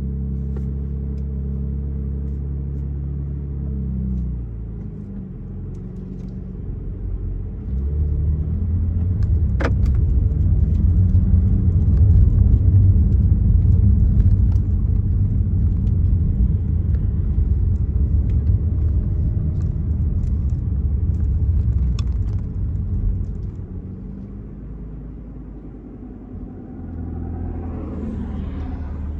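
BMW M4 Competition's twin-turbo straight-six running on the move: a steady low engine drone, then a louder deep rumble that builds about 8 seconds in and eases off after about 23 seconds before the steady drone returns. A sharp click about 10 seconds in.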